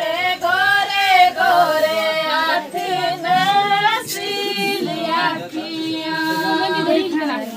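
Women singing a wedding song without instruments, in long held, wavering notes.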